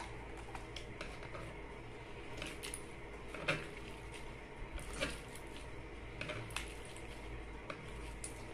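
Clear gold glitter slime being kneaded and squeezed by hand, with scattered soft squelches and sticky clicks over a steady low hum.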